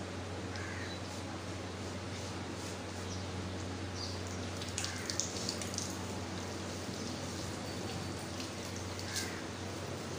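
A steady low hum and hiss, with a short bird call three times, about four seconds apart.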